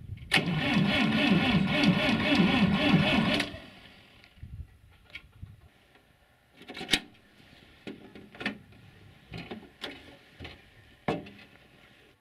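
Massey Ferguson 35 tractor engine cranked over by its starter motor for about three seconds on a cold start attempt, pulsing about twice a second with the compression strokes, then cutting off without catching. This is followed by several sharp clicks and knocks.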